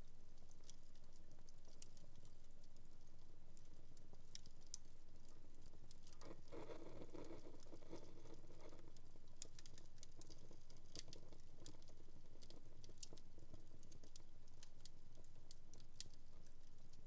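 Wood fire in a home fireplace crackling, with scattered sharp pops and clicks. About six seconds in, a denser, fuller stretch of fire noise lasts about two seconds.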